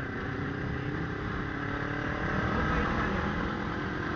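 Honda CB motorcycle engine running under way, with road and wind noise, growing gradually louder.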